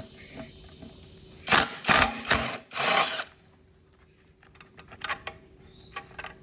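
Socket tool working the connecting rod cap bolts loose on a Honda GCP160 mower engine: four short bursts of rapid mechanical rattling, then a few light clicks.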